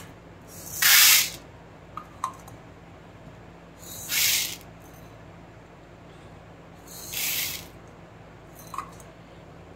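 Dry lentils (split dals and whole moong beans) poured into a large bowl in three separate pours. Each pour is a brief rattling patter of under a second, with a few small clicks between the pours.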